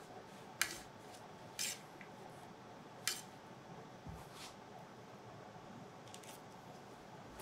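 Metal kitchen tongs clicking shut as grilled eggplant slices are picked up and laid in a mould: three sharp clicks in the first three seconds, then a few fainter ones.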